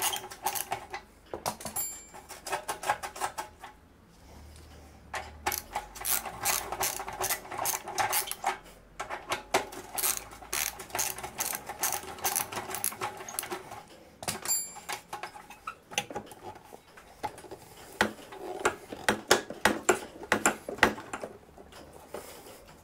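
Ratchet wrench clicking in fast runs, with short pauses, as it undoes the bolts on an exhaust clamp.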